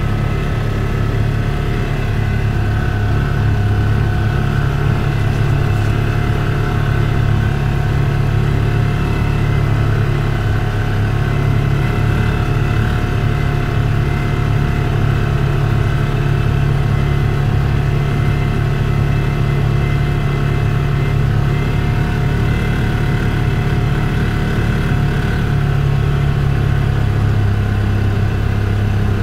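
Polaris Ranger UTV engine running steadily as the machine drives over snow, heard from inside the cab.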